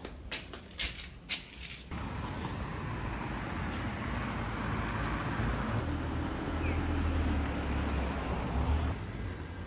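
A few sharp clicks, then the steady rumble and road noise of a motor vehicle, which sets in suddenly about two seconds in, grows louder and drops away near the end.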